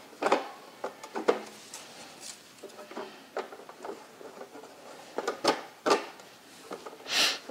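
Plastic mesh lid being fitted onto a small plastic turtle tank: scattered clicks and knocks of plastic on plastic, with a short scraping slide near the end.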